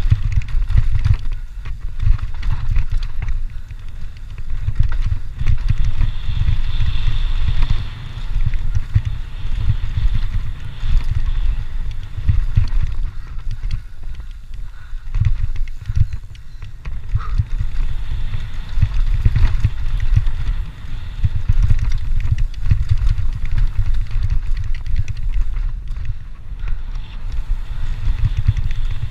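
Cross-country mountain bike ridden fast down a dirt singletrack: wind buffeting the rider's camera microphone in an uneven low rumble, with tyre noise and the bike's rattle and clatter over rough ground.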